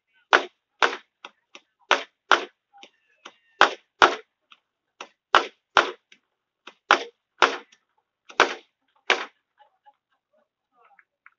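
Fireworks going off: a rapid string of about fourteen sharp bangs, often two close together, with fainter pops between, stopping about nine seconds in.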